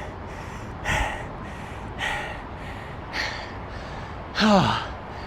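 A man breathing hard, out of breath after an all-out beep-test shuttle run: heavy gasping breaths about once a second, then a groaning sigh that falls in pitch near the end.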